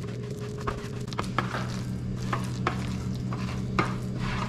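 A hand mixing wet masala paste on a stainless-steel platter: irregular squelching with light scrapes and taps of fingers against the metal, over a steady low hum.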